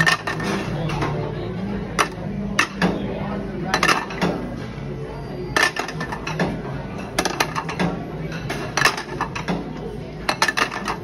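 Ceramic sushi plates clinking, taken one at a time off a stack and slid into a conveyor-belt restaurant's plate-return slot. About a dozen sharp clinks, roughly one every second, with several in quick succession near the end.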